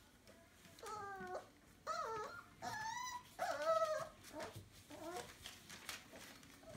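Entlebucher puppy whining: about four high, wavering whines in quick succession, then a couple of fainter ones.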